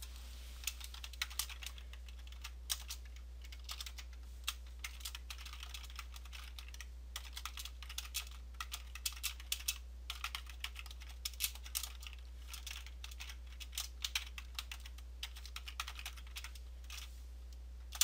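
Typing on a computer keyboard: an irregular patter of key clicks in quick runs and short pauses, over a steady low hum.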